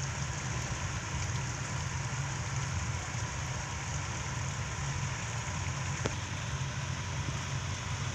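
Chicken simmering in its sauce in a metal pan, with a steady sizzling crackle over a low, even hum.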